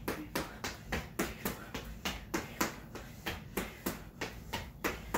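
Quick footsteps on a hard floor during agility ladder in-and-out footwork: steady, rapid foot strikes, about four a second.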